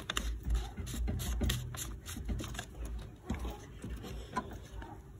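Plastic diesel fuel filter housing and its fuel hoses on a 2018 Mitsubishi Triton being handled and worked free of their bracket: a run of small plastic clicks, knocks and scrapes, busiest in the first two seconds.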